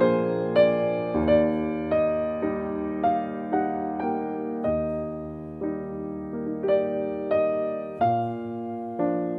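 Soft background piano music: a slow melody of single notes, one about every half second, over held chords.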